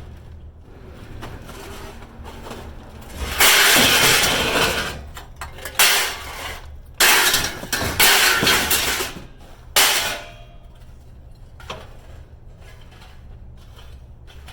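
Scrap metal clattering and crashing in four loud bursts over about six seconds, the first and third lasting more than a second.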